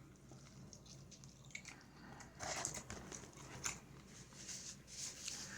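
A person chewing a mouthful of fried chicken, faint and irregular, with a few short louder bites.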